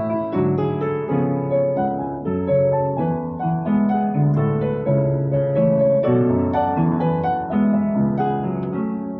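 Piano playing a melody over moving chords, with a continuous stream of notes in both bass and treble.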